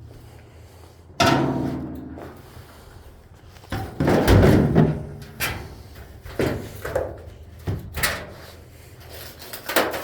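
Steel car fenders being handled: a hard clank about a second in that rings on briefly, a louder scraping, rattling stretch around four seconds, then a series of sharp knocks and clunks.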